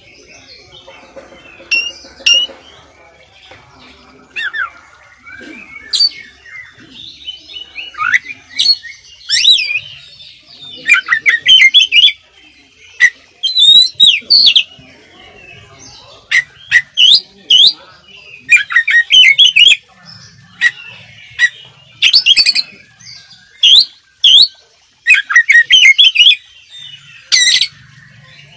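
Caged oriental magpie-robin (kacer) singing a fast, varied song of whistled sweeps and chattering notes, full of the mimicked phrases that keepers call isian. The song comes in short bursts with brief gaps, softer at first and much louder from about eight seconds in.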